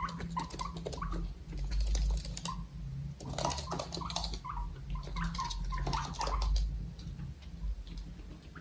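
Guinea pigs making many short, quick squeaks, mixed with scattered small clicks, over a low steady hum.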